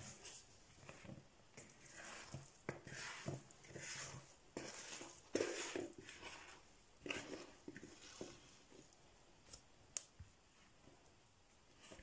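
Risen, sticky no-knead bread dough being scraped out of a plastic bowl by hand onto a floured countertop: soft, irregular scraping and swishing, with a short sharp click about ten seconds in.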